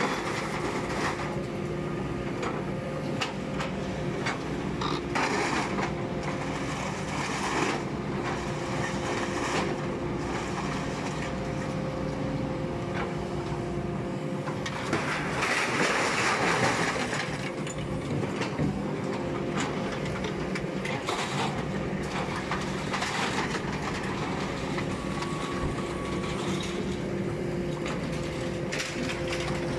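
Heavy machinery running steadily, a hum with a few held tones, while scrap sheet metal clanks and scrapes as an excavator's lifting magnet loads it into a hydraulic scrap-metal baler. A louder stretch of metal rattling comes about halfway through.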